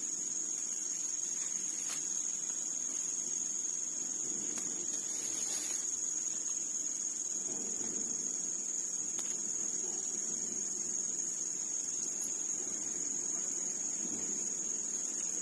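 Crickets chirring in a steady, high-pitched drone that holds one pitch throughout.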